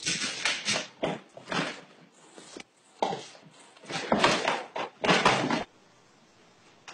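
A cat and a dog scuffling at a small stool: an uneven run of short, sharp bursts of noise and knocks as the cat swats and the dog lunges. The sound stops abruptly about five and a half seconds in and gives way to quiet.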